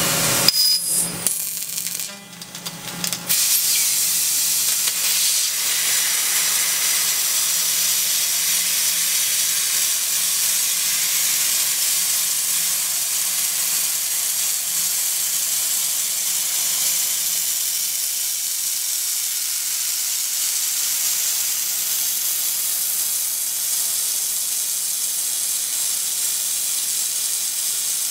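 Compressed-air assist jet of a 12 kW fiber laser cutting head on 30 mm stainless steel plate. For about the first three seconds it comes in uneven bursts while the beam pierces the plate, then it settles into a steady loud hiss as the head cuts through.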